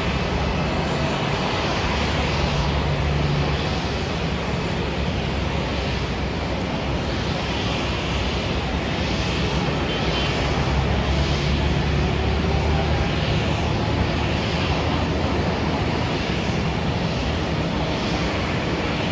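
Steady jet aircraft noise across an airport apron, an even rushing din with a low rumble that swells and eases slightly.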